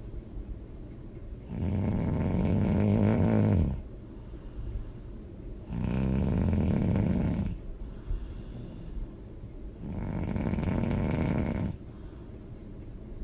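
A person snoring loudly: three long snores about four seconds apart, with quieter breaths between them.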